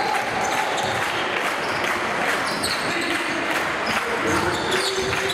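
Basketball dribbled on a hardwood court, with short high squeaks and the steady murmur of a crowd in a hall.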